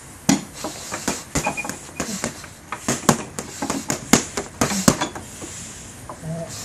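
Boxing gloves punching a duct-taped heavy bag in a fast flurry of sharp thuds, about three to four a second, stopping about five seconds in.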